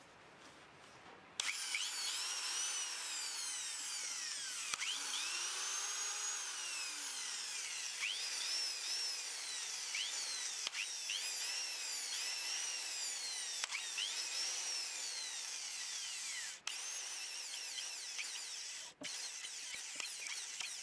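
Old Bosch corded electric impact wrench running free with no load, its motor whine rising and falling again and again as the trigger is squeezed and eased. It starts about a second and a half in and has two momentary breaks near the end. This is a test run after a repair of its switch, which used to make it cut out.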